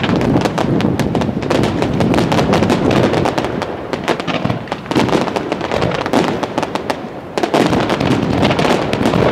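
Chiarappa Fireworks display: aerial shells bursting in a dense, continuous run of sharp crackling pops and bangs. It eases briefly, then comes back with a fresh volley about seven seconds in.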